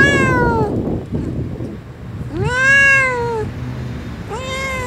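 A kitten meowing three times. Each meow rises then falls in pitch, and the middle one is the loudest.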